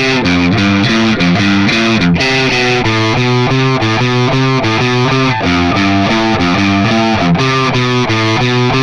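Squier Affinity electric guitar played through distortion, picking a fast run of single notes, about four a second, without a pause.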